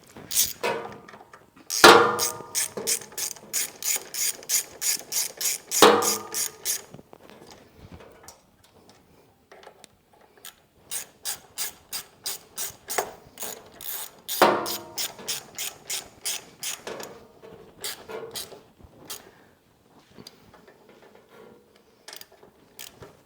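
Ratchet wrench clicking in quick, even runs as a bolt is turned, in two long runs with a few scattered clicks after.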